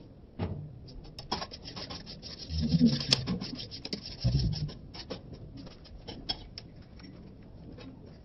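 Steel spoon beating eggs and chopped onion in a stainless steel bowl: rapid clinks and scrapes of metal on metal, with a couple of duller knocks. The beating stops about six and a half seconds in.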